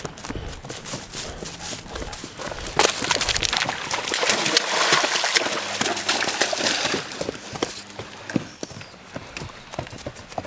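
Running footsteps on a woodland floor: quick, irregular thuds and crunches of feet on earth, leaves and stones, with a louder, noisier stretch from about three to seven seconds in.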